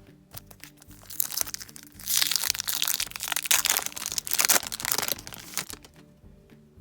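Wrapper of a Topps baseball card pack being torn open and crinkled, loudest from about two to five seconds in, with quiet background music underneath.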